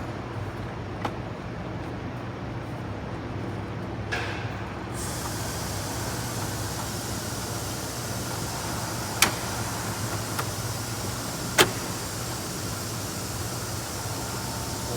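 Plastic dash trim being worked into place, giving a few sharp clicks over a steady low hum as its clips seat.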